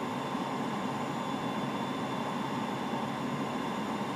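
Steady rushing cabin noise on a Boeing 787 flight deck during final approach: airflow and ventilation hiss with a few faint steady tones.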